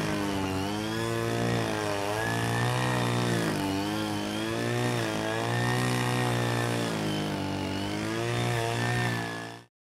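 An engine running steadily, its pitch rising and falling every second or two, cutting off suddenly near the end.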